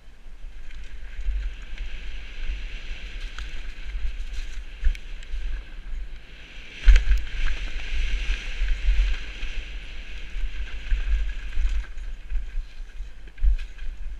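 Wind buffeting a helmet-mounted camera's microphone and a downhill mountain bike's tyres rolling over a dirt trail, with frequent sharp knocks and rattles from the bike over bumps. A hard thump about seven seconds in is the loudest, with another near the end.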